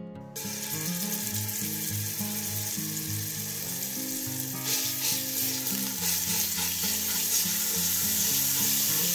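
Olive oil and homemade garlic-and-salt seasoning sizzling in a hot pan. The sizzle starts suddenly less than a second in and grows louder about halfway through.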